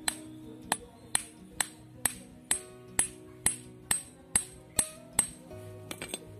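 A machete blade striking a bamboo stake to drive it into a banana corm, in a steady run of about two sharp, ringing strikes a second that stops about five seconds in, with a few light taps near the end. Background music plays underneath.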